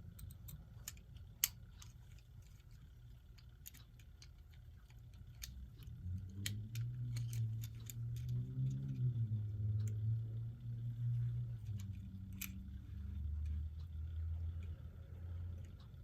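Small clicks and taps of plastic clock-movement parts being handled and pried apart, one sharper click about a second and a half in. From about six seconds in, a low wavering hum runs under the clicks.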